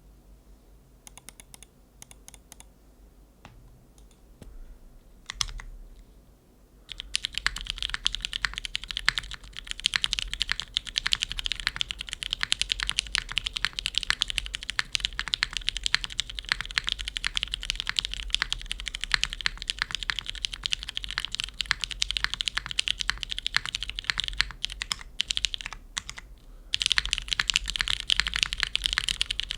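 Mechanical keyboard with lubed Cherry MX2A Brown tactile switches on a carbon fibre plate, gasket-mounted without foam, under GMK keycaps. A few scattered keystrokes at first, then fast continuous typing from about seven seconds in, with a brief pause shortly before the end.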